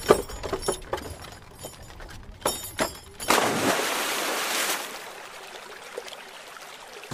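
A few clattering knocks, then a small toy cart splashing into river water about three seconds in, with a second and a half of splashing and churning water that dies away.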